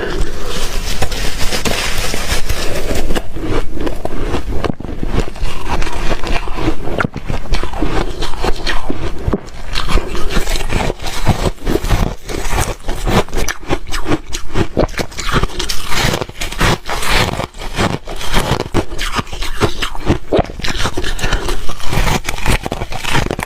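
Ice being chewed and crunched close to the microphone: a dense, continuous run of sharp cracks and crunches.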